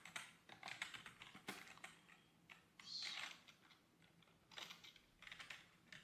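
Faint, irregular clicking and tapping of a computer keyboard, with a few short hissy sounds in between.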